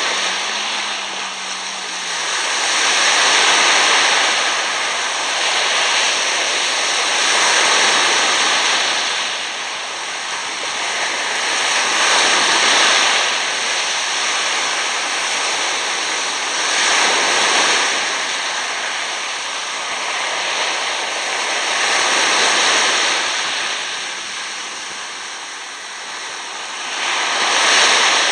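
Small waves washing up over coarse sand at the water's edge in a foamy wash and drawing back, a hiss that swells and eases about every four to five seconds.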